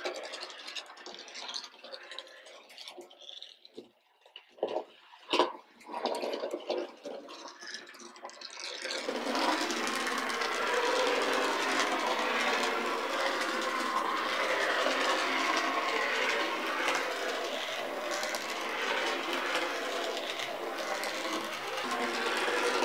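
Small model locomotive, a Bachmann HOn30 Rusty, running on N-gauge track: its electric motor and wheels make a steady whirring rattle. The rattle sets in about nine seconds in, after a quieter stretch with a few faint clicks.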